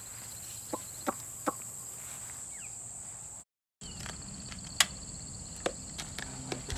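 Steady high-pitched drone of insects, with a few short sharp calls or clicks scattered over it. The sound drops out completely for a moment a little past halfway, then the insect drone returns.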